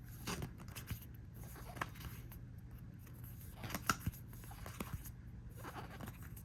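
One Piece trading cards being handled and flipped through by hand: a scattering of short swishes and clicks of card stock sliding over card, the clearest a little before the middle, over a low steady hum.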